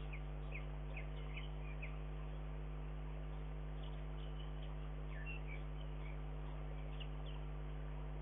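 Faint short chirps of small songbirds, several in quick succession in the first two seconds and a few scattered later, over a steady low hum and hiss.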